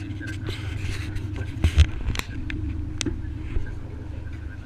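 Passenger ferry's engine running with a steady low drone, with several short sharp knocks over it.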